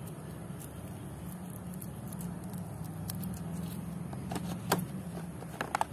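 Cardboard toy box being opened by hand, with a few sharp taps and scrapes of the box flaps in the second half, over a steady low hum.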